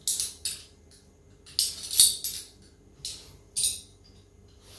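Metal 1.9-inch RC crawler beadlock wheels clinking as they are set down one after another, bright metallic jingles in quick pairs and small groups.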